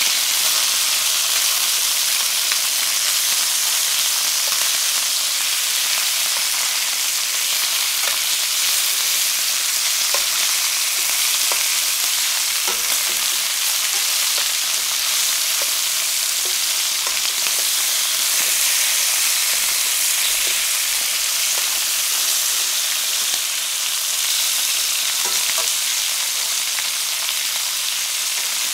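Chicken thighs and drumsticks searing in a stainless steel pan: a steady sizzle with occasional faint pops and clicks as the pieces are turned with tongs.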